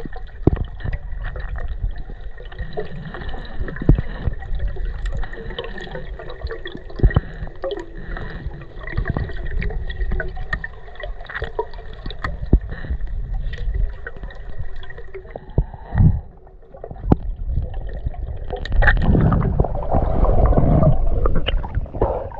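Water noise heard underwater through a spearfishing camera: a muffled, even hiss scattered with clicks and knocks. A faint steady tone runs under it and stops about three-quarters of the way through; near the end the water noise grows louder and fuller.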